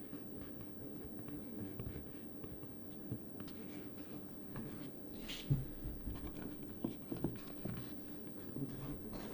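Paper being handled and worked by hand: faint scratching and rustling with scattered small ticks, and one brief louder scrape about five seconds in, over a steady low hum.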